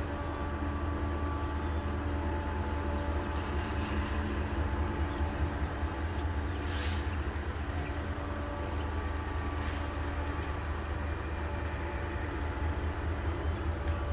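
An empty freight train rolling past: the steady low rumble of its cars' wheels on the rails, with a few faint steady hum tones over it.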